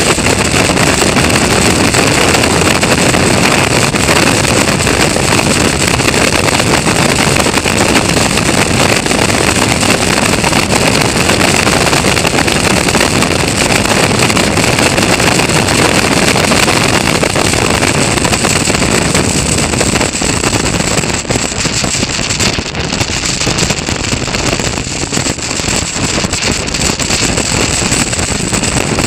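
Caterham Roadsport race car's four-cylinder engine running hard at racing speed, heard onboard, with heavy wind rushing over the microphone. The sound eases slightly for a few seconds in the last third.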